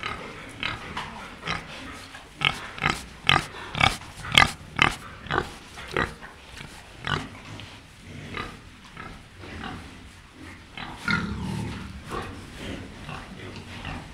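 Pig grunting: a series of short grunts, loudest and quickest a few seconds in, then sparser, with a longer, lower grunt near the end.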